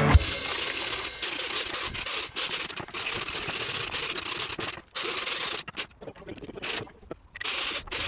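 Wire brush scouring corroded aluminium outboard-motor castings: a scratchy rubbing hiss, broken by several short gaps.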